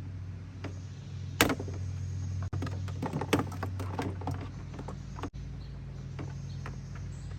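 Parts being handled inside a car door during window-regulator removal: a sharp click about a second and a half in, then a run of small clicks and rattles, over a steady low hum.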